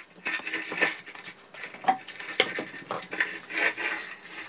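Irregular metallic clinks and clatter of lug nuts and a socket being handled as a car wheel is taken off its hub.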